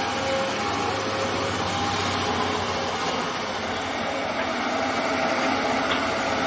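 Steady machinery drone with a broad hiss and a few faint steady tones, even throughout.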